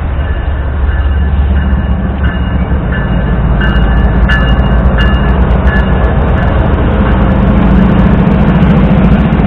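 BNSF diesel freight locomotive pulling past close by, a heavy low rumble that grows louder as it comes alongside. A faint high ring repeats about every two-thirds of a second, and scattered sharp clicks join in about midway.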